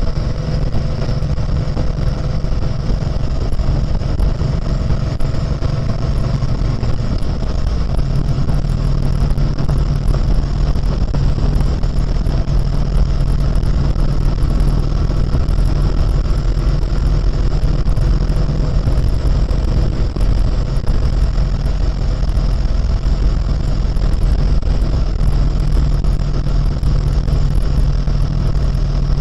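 Harley-Davidson Road King's air-cooled V-twin engine running steadily at cruising speed, with wind and road rush over the on-board microphone.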